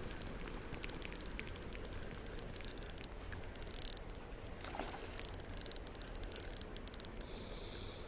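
Fishing reel clicking rapidly in several spells as line is wound or pulled through it.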